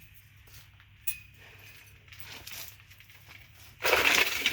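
Metal engine parts and tools being handled: a light clink about a second in, then a louder, short metallic rattle near the end.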